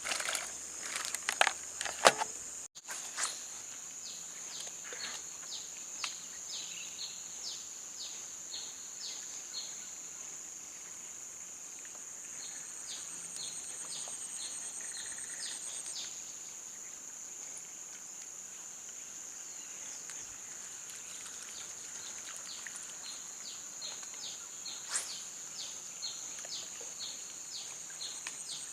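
Steady high-pitched drone of forest insects, with a short falling chirp repeated about twice a second over it. A few sharp clicks and knocks sound in the first three seconds.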